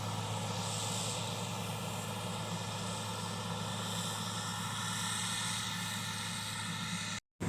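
Heavy earthmoving machine's diesel engine running steadily with a constant low drone. It cuts off abruptly near the end.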